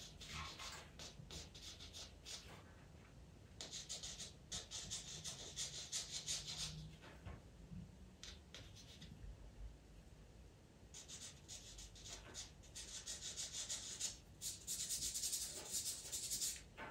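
Pastel pencil scratching across textured pastel paper in quick, short, repeated strokes, laying in fur. The strokes come in two main runs: one a few seconds in and a longer one near the end.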